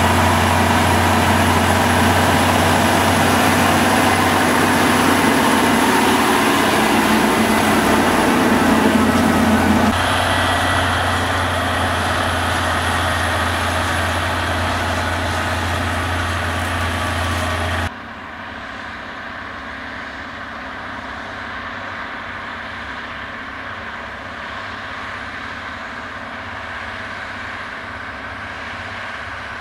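John Deere 9630T tracked tractor's 13.5-litre six-cylinder diesel running steadily under load, pulling a heavy cultivator through the soil. The sound changes abruptly twice, about a third and about two-thirds of the way through, and is quieter and more distant in the last third.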